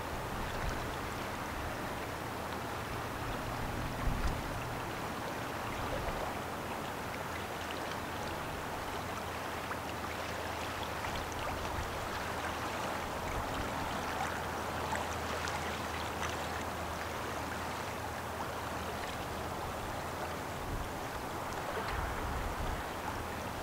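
Steady rush of moving river water, with a faint low steady drone underneath.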